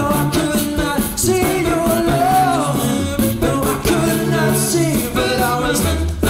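A man singing a 60s-soul-style song live into a microphone, the melody gliding up and down over a steady beat with a pulsing bass line.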